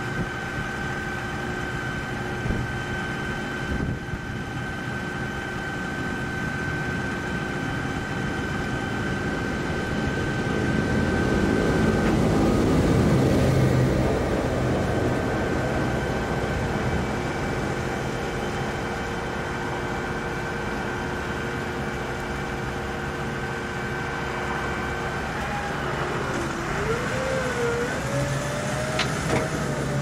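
Tractor and Grimme Tectron 410 self-propelled potato harvester running, a steady machine hum with several steady tones. It swells louder about halfway through, and near the end a whining tone wavers up and down.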